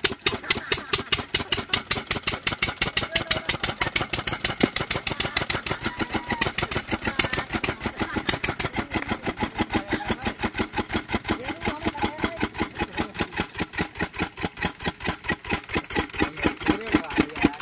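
Kirloskar single-cylinder stationary diesel engine running steadily at low speed, a regular chugging beat of several firing strokes a second.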